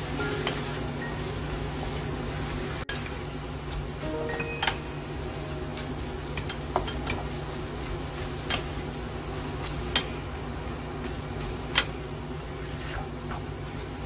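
Kimchi, tuna and onion sizzling in a frying pan as a spatula stirs and turns them, with a handful of sharp clicks where the spatula knocks against the pan.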